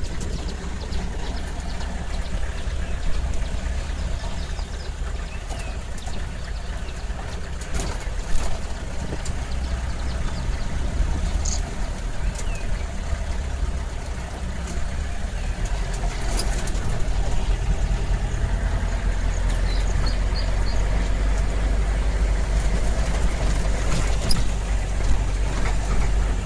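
Safari jeep engine running with a steady low rumble, heard from inside the open cab as it drives along a dirt track, with scattered knocks and rattles; it gets louder about halfway through.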